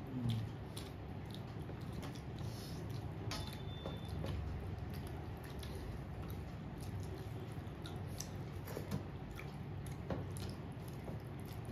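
A person eating: chewing with soft, squishy mouth sounds and scattered small clicks, over a low steady hum.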